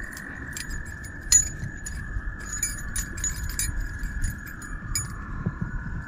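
Small metallic clinks and clicks of fishing tackle (lure, hooks and line hardware) being handled while rigging a line, one sharper click about a second in. A steady high background drone runs under them.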